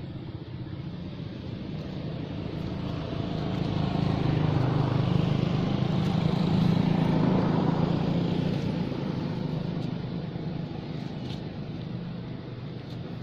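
A motor vehicle's engine passing by: a low drone that builds to its loudest about six to eight seconds in, then fades away.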